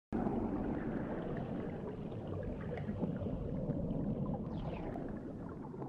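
Scuba diver exhaling through a regulator underwater: a continuous rush of bubbles streaming from the exhaust, full of small crackles and pops.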